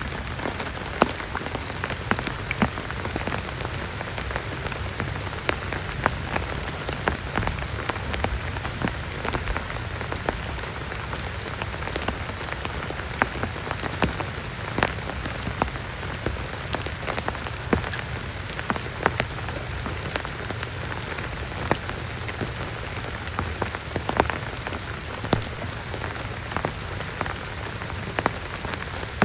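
Heavy rain falling steadily, with frequent sharp, irregular drop impacts standing out from the even hiss of the downpour.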